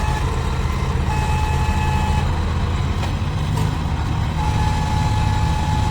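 Tractor engine running with a steady low rumble, while a high steady beep sounds in stretches of about a second, twice with a gap between.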